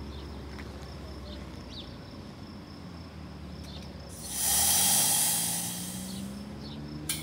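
Propane hissing out of an unlit weed-burner torch as the tank valve is opened, loud for about two seconds and then fading as the excess flow check valve in the tank's POL fitting trips and cuts the flow. A single click follows near the end.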